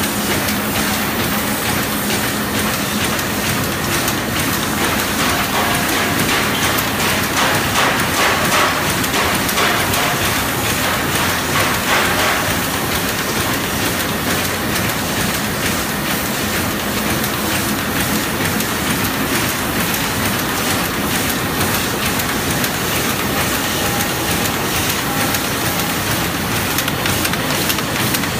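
New Star YFMA-1050G automatic film laminating machine running, feeding printed sheets through its rollers: a steady mechanical clatter with rapid ticking.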